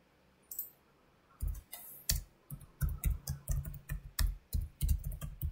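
A single click, then typing on a computer keyboard from about a second and a half in: a run of quick, uneven keystrokes.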